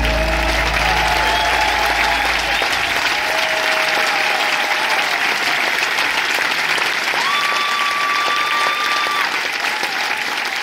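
Concert audience applauding after a song, while a low note from the band dies away about two and a half seconds in.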